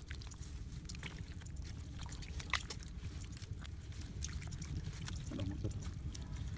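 Hands patting and smoothing wet mud, with small wet squelches and clicks and one sharper click near the middle, over a steady low rumble.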